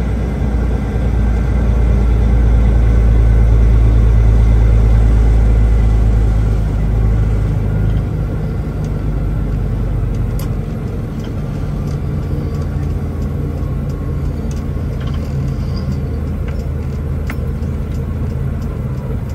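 Truck engine running with a low, steady rumble, heard from inside the cab as the truck drives slowly. It grows louder over the first few seconds, then eases off about seven seconds in and runs quieter, with a few faint clicks.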